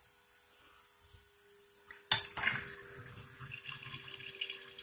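A sharp clunk about two seconds in as the sink drain is opened, then water from the full basin running down the drain.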